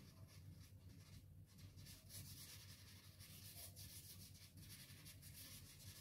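Faint scratching of a soft pastel stick rubbed across paper in repeated short shading strokes.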